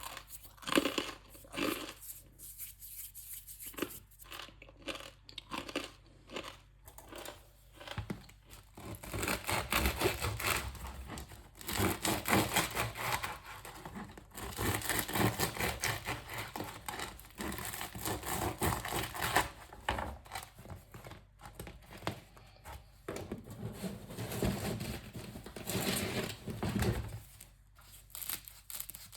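Crust of a fresh French baguette crackling and crunching: a run of separate crisp cracks, then long stretches of dense, continuous crackling.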